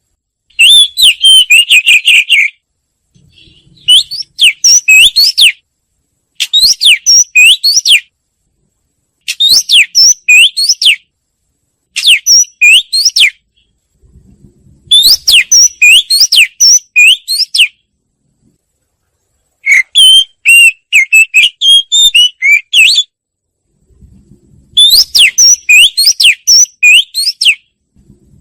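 Wagtail song: about eight loud phrases of quick, high, rising and falling whistled notes, each lasting one to three seconds, with short pauses between them.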